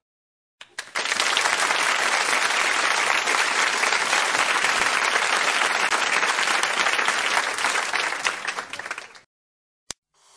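Audience applause, a large crowd clapping steadily. It starts about half a second in and fades out at about nine seconds.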